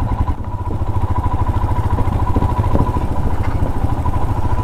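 Royal Enfield Himalayan's single-cylinder engine running steadily at low speed as the motorcycle rolls slowly onto a wooden bridge, a dense even thumping.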